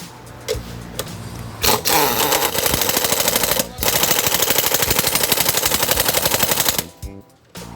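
A rapid, even mechanical rattle of strikes lasting about five seconds, with a short break in the middle, stopping suddenly near the end.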